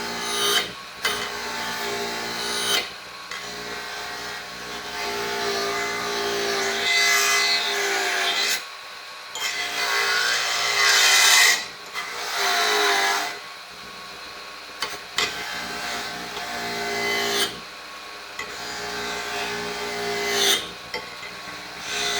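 Motor-driven wire wheel running steadily, with a rough scratching hiss whenever the rusty pliers are pressed against the spinning bristles to clean the jaw faces; the contact comes and goes, with a few short breaks.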